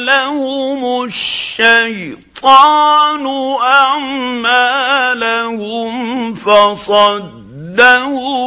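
A man reciting the Quran in the melodic mujawwad style: long held, ornamented notes that waver in pitch, with brief pauses for breath between phrases.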